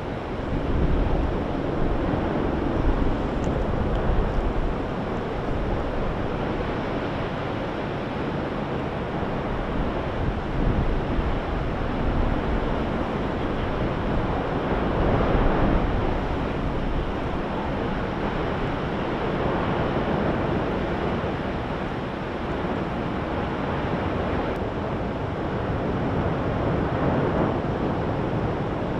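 Low, steady roar of the erupting Fissure 8 lava fountain mixed with wind buffeting the microphone, swelling in gusts now and then.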